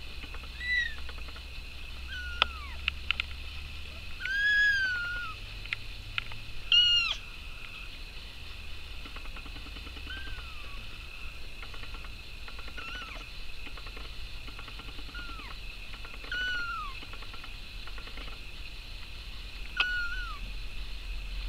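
Kittens mewing: about nine short, high, thin calls that arch down in pitch, one every couple of seconds, the longest and loudest about four and a half and seven seconds in. A few sharp clicks fall between about two and six seconds in.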